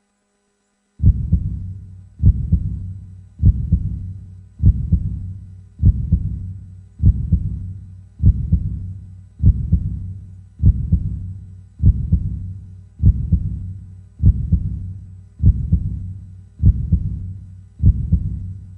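Heartbeat sound effect: a slow, steady heartbeat of deep, low thumps about every 1.2 seconds, starting about a second in.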